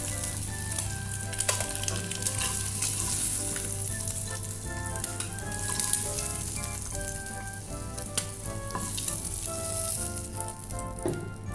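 Oil sizzling in a nonstick frying pan as boiled eggs fry on low flame, with scattered clicks and scrapes of a wooden spatula against the pan as the eggs are lifted out.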